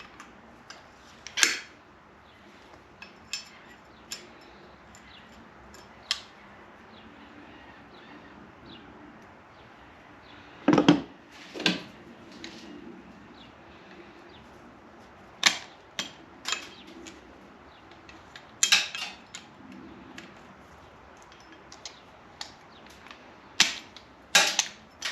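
Hand tools knocking and clicking against a truck door hinge as its worn-out pin bushings are worked free. The knocks are sharp, at irregular intervals, in scattered clusters, with a few louder double knocks.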